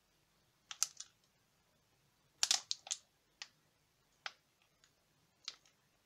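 Crinkles and crackles of a metallized plastic snack wrapper being handled and turned in the fingers: a couple of sharp crackles about a second in, a quick cluster around two and a half seconds, then single ones spaced out toward the end.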